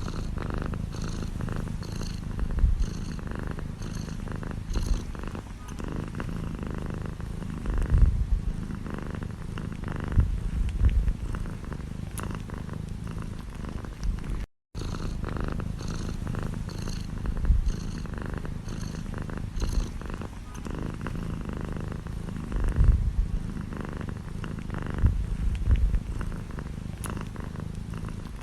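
Domestic cat purring steadily close up, a continuous low rumble with louder swells now and then. About halfway through it cuts out for an instant, and the same purring recording starts again.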